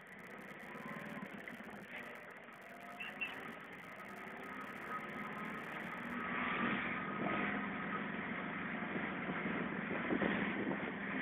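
A motor vehicle riding through city streets: engine and road noise growing steadily louder as it gets under way, with a few faint rising and falling engine tones and a couple of short knocks near the end.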